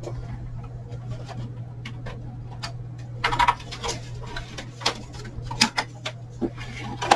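Plastic electrical plugs and power strip being handled and plugged in: a series of irregular sharp clicks and knocks, mostly in the second half, over a steady low hum.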